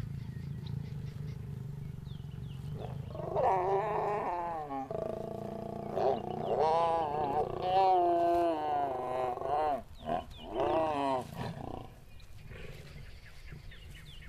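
A mating pair of lions snarling and growling as a mating bout ends: a run of loud calls that rise and fall in pitch, from about three seconds in until near eleven seconds, over a low rumble.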